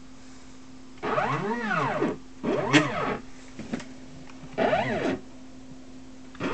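Stepper motors of a homemade mini CNC machine driving its lead screws on a first trial run: three short moves, each a whine that rises in pitch and falls back as the axis speeds up and slows down, over a steady low hum. Near the end another move starts, its whine climbing and then holding steady.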